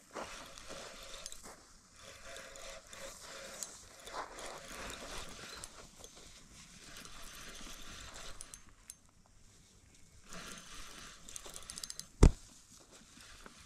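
Faint rustling and scattered clicks, with one sharp, loud knock near the end.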